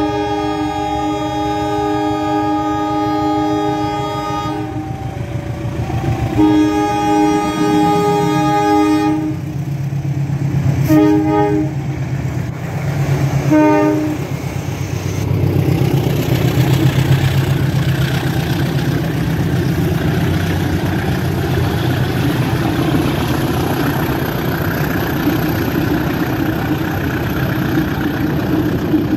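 CC 201 diesel-electric locomotive's multi-tone horn sounding two long blasts followed by three short toots, a horn greeting from the cab crew to the railfans. After that, the locomotive's engine and the coaches run past with a steady rumble, and between the first two blasts the level crossing's two-tone warning signal can be heard.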